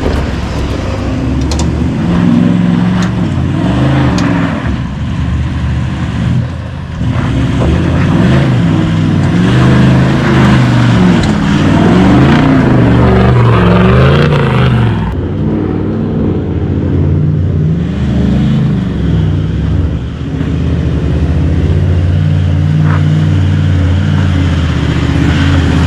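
Vehicle engine running under way, its pitch rising and falling repeatedly as the revs climb and drop, over steady road and wind noise.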